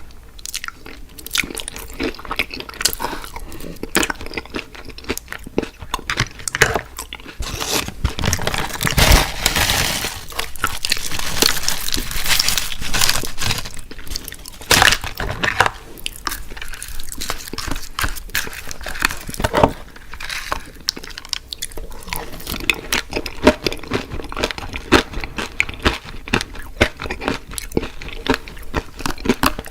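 Close-miked eating of fried fast food: crunchy bites and wet chewing in a string of crackles and clicks, with a denser run of crunching about ten seconds in.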